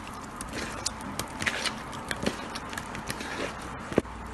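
A hand kneading raw fish fillet pieces with a salt, turmeric and chili powder marinade in a bowl: a run of short, wet clicks and rubs, with one sharper knock near the end.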